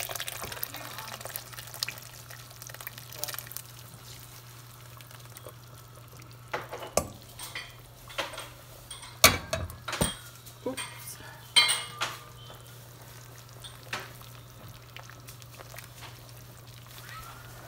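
Thick curry paste being tipped from a pan into a soup pot, then a metal utensil scraping and knocking against the pan to clear it, with a few sharp clanks in the middle. A steady low hum runs underneath.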